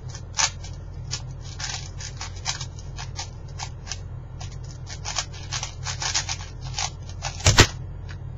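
4x4x4 speed cube turned fast by hand: a rapid stream of plastic clicks and clacks as its layers turn. About seven and a half seconds in comes a loud double thump as the solved cube is put down and both hands slap onto the Speed Stacks timer pads to stop it.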